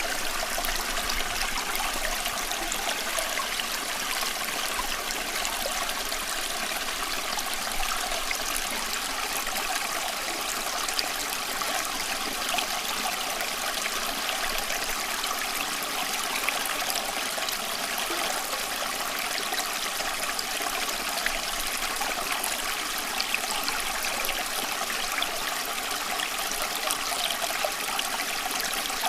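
Running water, a steady unbroken trickling rush with little deep rumble.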